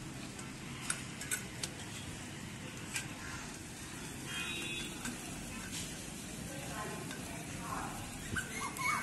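Chicken skewers sizzling on a wire grate over a charcoal grill, a steady hiss with a few sharp pops and crackles in the first three seconds.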